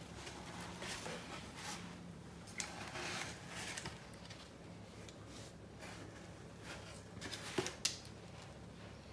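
Faint rustling and light knocks of plastic toys being handled, with a sharper click about three quarters of the way through.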